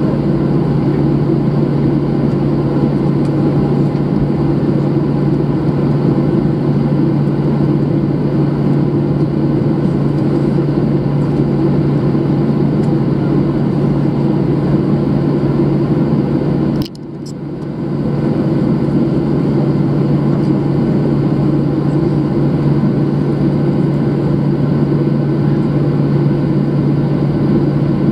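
Jet airliner cabin noise while taxiing: the engines running at low taxi power make a steady drone with a low hum. About two-thirds of the way through, the sound dips sharply for a moment and comes back within a second.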